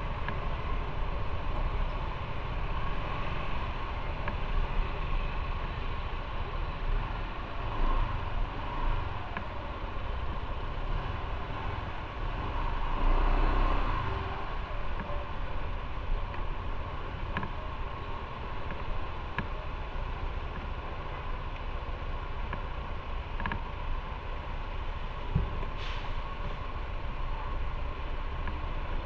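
Motorcycle riding along a road: steady engine and road noise with a low rumble, swelling louder for a moment about halfway through.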